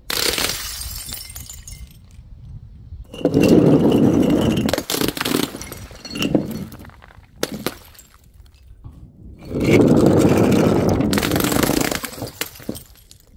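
Glass bottles shattering: several loud smashes a few seconds apart, each followed by tinkling shards.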